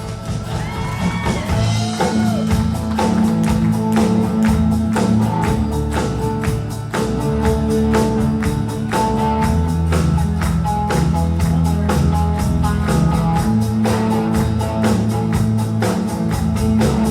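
Live band playing the instrumental introduction of a country-folk song, with guitars and bass over a steady, even beat.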